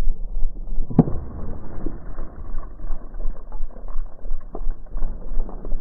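Low, buffeting wind rumble on the microphone, rising and falling several times a second, with one sharp knock about a second in.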